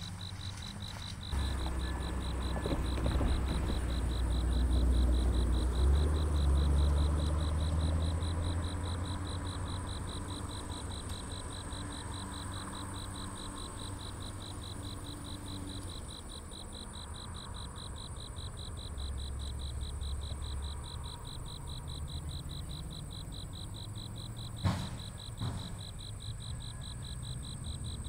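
Crickets chirping in a steady, rapid, even pulse, over a low engine rumble that swells about a second in and fades away by about halfway. A single sharp knock near the end.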